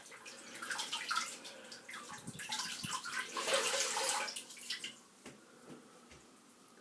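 Water running and splashing at a sink for about five seconds, loudest near the middle, then stopping.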